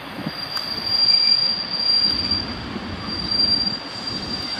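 Passenger train hauled by an EP07 electric locomotive arriving and braking, with a steady high-pitched squeal from the brakes and wheels starting about half a second in, over the rumble of the train rolling in.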